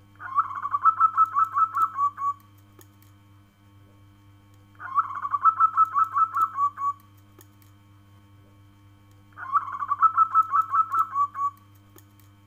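Zebra dove (perkutut) cooing song: three bouts of rapid staccato notes, each about two seconds long and ending in a drawn-out note, repeated about every four and a half seconds.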